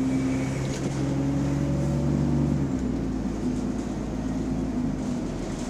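Diesel bus engine running with the bus under way, a steady engine note that changes about three seconds in. The bus has a large exhaust leak.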